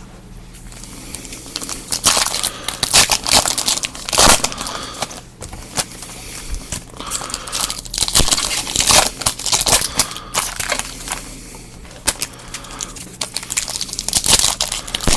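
Plastic wrappers of football trading card packs being torn open and crinkled in the hands, in irregular bursts of rustling and crackling.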